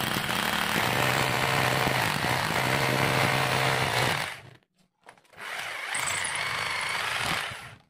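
RYU RRH26 rotary hammer hammer-drilling into a block of cast concrete, running loudly for about four seconds, stopping briefly, then running again a little quieter for a few seconds. The bit goes through the concrete quickly.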